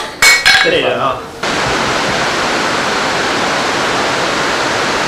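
A short spoken word, then about a second and a half in a steady, even rushing noise sets in abruptly and holds at a constant level.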